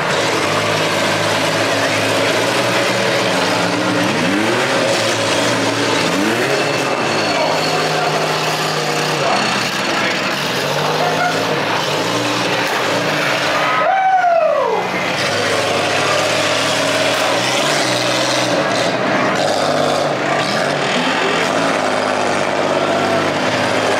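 Several demolition derby cars' engines running at once, revving up and down in overlapping bursts. The loudest rev, rising and falling in pitch, comes a little past halfway.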